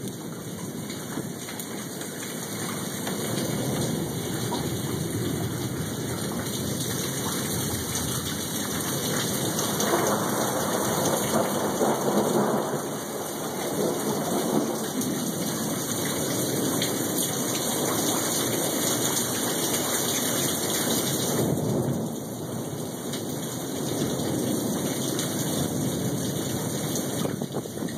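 Rain falling through a thunderstorm, with thunder rumbling and swelling several times, loudest about ten to thirteen seconds in. The rain's hiss eases a little after about twenty-one seconds.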